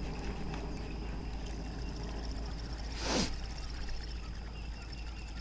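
A cast with a baitcasting rod about three seconds in: one short swish that falls in pitch as the buzzbait is thrown out. Crickets chirr steadily in the background.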